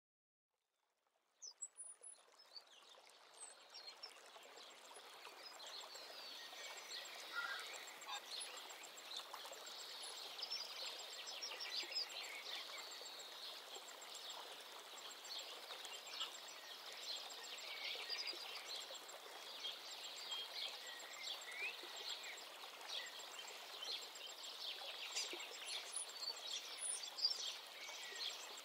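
Many small birds chirping and twittering together in a dense outdoor chorus over a faint steady hiss. It fades in about a second in and builds over the next few seconds.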